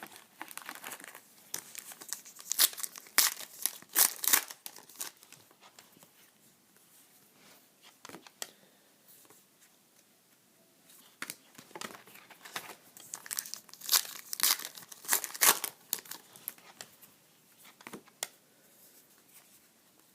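Trading card pack wrappers being torn open and crinkled by hand, with sharp crackling in two busy spells, one at the start and one from about eleven seconds in, separated by a quieter stretch of occasional rustles.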